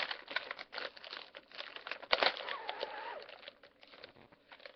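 Crinkling and rustling of a plastic cookie package being handled and opened, with a loud sharp crackle about two seconds in, then quieter.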